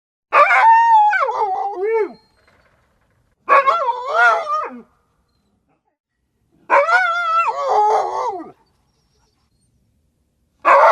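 A dog howling in three separate drawn-out calls, each about one and a half to two seconds long, with a wavering pitch that slides down at the end. A fourth call begins right at the end.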